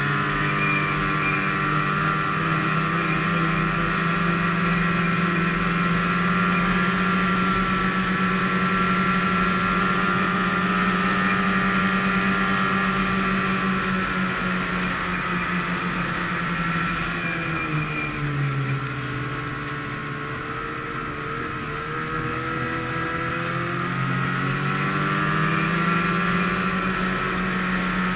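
Snowmobile engine running at a steady cruising speed, heard from the rider's own sled. About two-thirds of the way through, its pitch drops as the sled slows, then climbs back up as it speeds up again.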